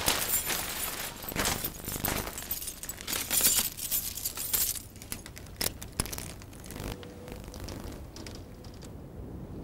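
A bunch of keys jangling and clinking as a hand grips them, in several bursts over the first five seconds, with one sharp click about six seconds in.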